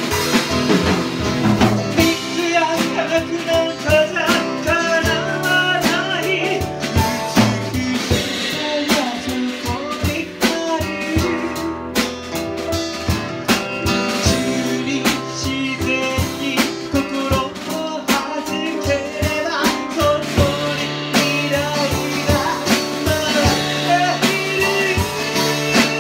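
Live band performance: a male lead vocal sung into a microphone over a Sonor drum kit, an acoustic-electric guitar and a keyboard, in a bluesy pop style.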